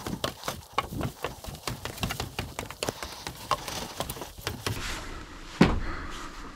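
Footsteps climbing the stairs of a lookout tower: a quick, irregular run of knocks and taps, with one louder thump about five and a half seconds in.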